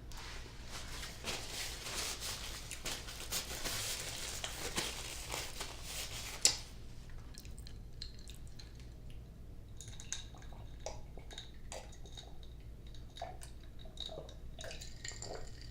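Close-up mukbang eating sounds of a seafood boil in butter sauce: wet squishing, smacking and chewing. These are busiest for the first six seconds, with a sharp click about six and a half seconds in, and then thin out to scattered smacks and ticks.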